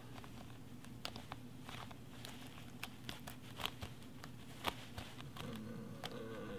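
Small clicks and fabric rustling as a jacket's front zipper is fumbled with and worked at its bottom end. A faint pitched sound comes in near the end.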